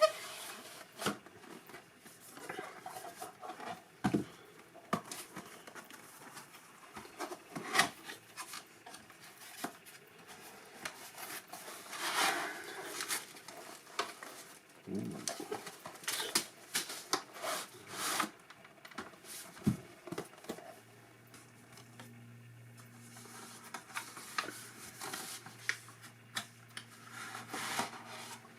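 A power bank's cardboard box and packaging being opened and handled by hand: scattered knocks, taps and clicks with bouts of cardboard and plastic rustling. A faint steady low hum comes in for the last several seconds.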